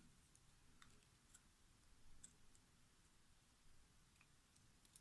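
Near silence with a few faint, scattered small clicks of metal lock parts being worked by hand as the lock cylinder is gutted.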